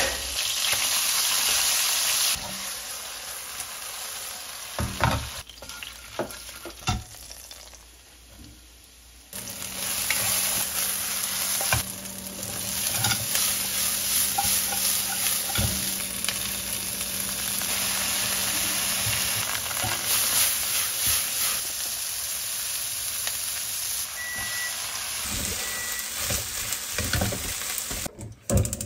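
Diced pork, then onions and rice, sizzling in hot oil in a nonstick wok pan while being tossed and stirred with a wooden spatula. The sizzle drops to a quieter stretch with a few knocks for several seconds about a third of the way in, then returns steady.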